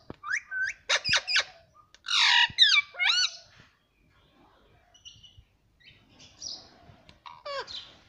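Indian ringneck parakeet calling: a run of short chattering calls that bend up and down in pitch, with a loud harsh squawk about two seconds in. A few seconds of faint calls follow, then more chattering near the end.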